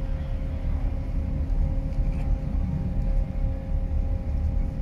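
Steady low rumble of a large ro-ro ferry's engines as the ship manoeuvres stern-first toward its berth, with a steady machinery hum over it.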